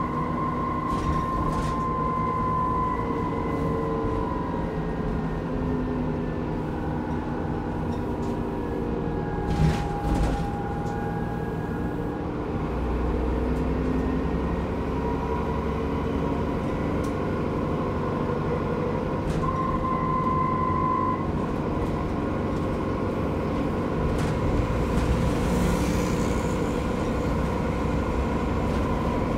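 Transbus Trident double-decker bus heard from inside while under way: the diesel engine and driveline run steadily under road rumble, with a high whine that slowly rises and falls in pitch. One sharp knock about ten seconds in, and rattles from the body.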